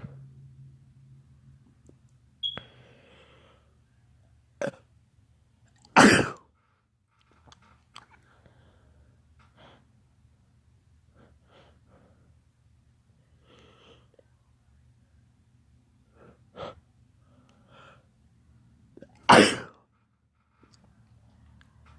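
A person in a fit of sneezing: two loud sneezes, about six seconds in and again near the end, with shorter, quieter sharp sounds and breaths between them.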